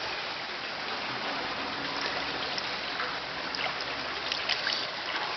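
Steady running water with light trickling and small splashes.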